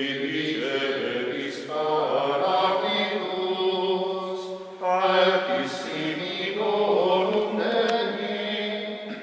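Men's voices chanting a prayer together in long held phrases, each new phrase starting again after a short break.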